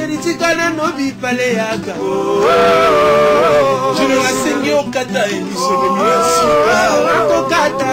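Live acoustic music: several male voices singing together in harmony over acoustic guitars. From about two and a half seconds in, the voices hold long notes.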